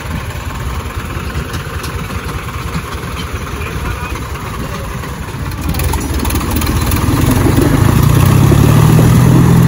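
Diesel tractor engines under heavy load, pulling against each other in a tractor tug-of-war. The engine sound grows much louder about six seconds in and holds a loud, deep, steady drone to the end.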